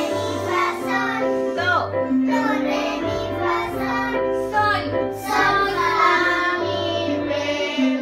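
A group of children singing a song while playing electronic keyboards, with held keyboard notes and a steady bass line under their voices.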